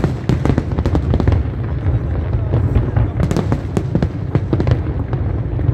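Aerial fireworks display at full volley: many sharp bangs and crackles of shell bursts in quick succession over a continuous low rumble.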